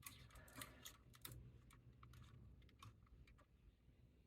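Near silence with faint, scattered clicks and taps of a plastic model kit's parts being handled.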